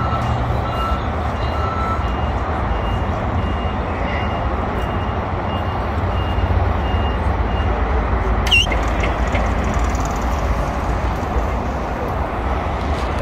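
Toyota forklift's warning beeper sounding about twice a second while it drives with a pallet of crates, stopping about seven seconds in, over a steady low rumble of vehicles in the yard. A sharp click a little past eight seconds in.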